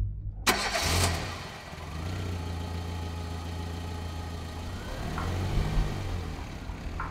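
A sudden loud hit, then a car engine catches and runs at a steady idle, with a brief rev about five seconds in.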